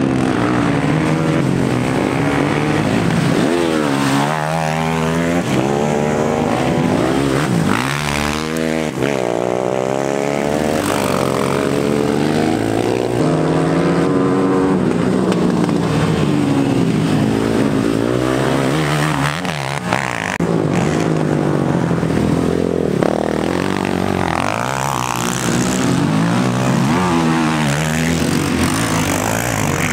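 Racing quad bike engines revving hard as they pass, several machines overlapping, the pitch climbing and dropping over and over as they accelerate and shift gears.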